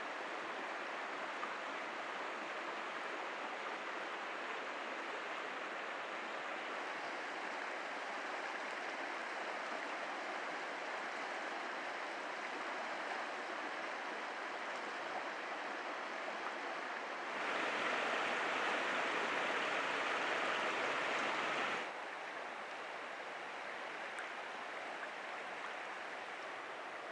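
River water rushing over rocks and rapids, a steady hiss of flowing water. Partway through, a louder, brighter rush of water cuts in abruptly for about four seconds, then drops back just as suddenly.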